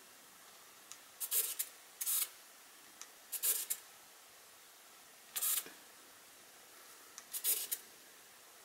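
A Pentax Espio 120SW compact film camera's lens motor whirring in five short bursts, each under half a second, spaced one to two seconds apart.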